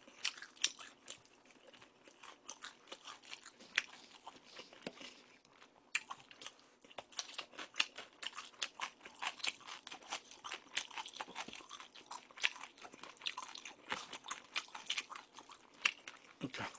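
A person chewing crispy fried tangsuyuk (Korean sweet-and-sour pork) close to the microphone: a steady, irregular run of small crunches and crackles.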